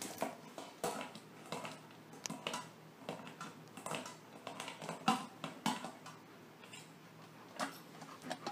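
Metal dog bowl knocking and clattering as a Labrador noses and paws it around on the floor and picks it up in her mouth: irregular sharp knocks, about one or two a second, some with a short metallic ring.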